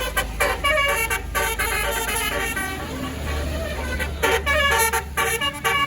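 Tour bus's basuri telolet horn playing a quick melody of short, pitch-changing toots in two runs with a lull in the middle, over the low rumble of the bus engine.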